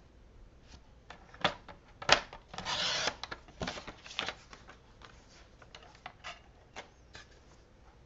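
Sliding-blade paper trimmer cutting cardstock: clicks and knocks as the cardstock and the trimmer are handled, with a short rasping slide of the blade through the card about three seconds in, then lighter taps.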